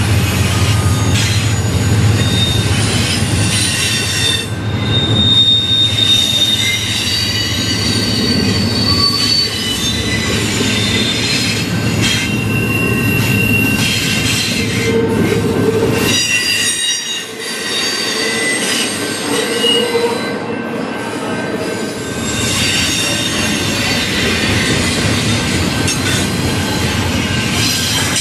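Norfolk Southern intermodal freight cars rolling past at close range, a continuous rumble of wheels on rail with high squealing from the wheels that comes and goes. The last car passes near the end.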